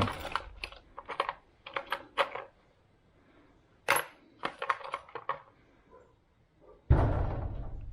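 Small metal screws clinking and rattling as a hand picks through a box of them, in two spells of sharp clicks with a quiet gap between. Near the end a louder low rustle of handling noise comes in.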